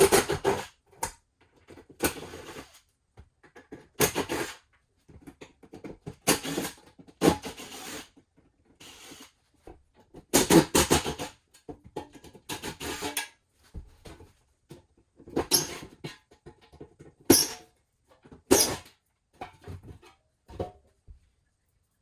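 Irregular bursts of squeaking, scraping and rattling metal, one every second or two, as rusted seat fasteners and a seat frame are worked loose inside an empty school bus; they stop shortly before the end.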